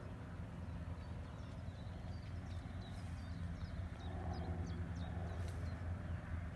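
Outdoor ambience: a steady low rumble, with several short, high, falling chirps from about a second and a half in.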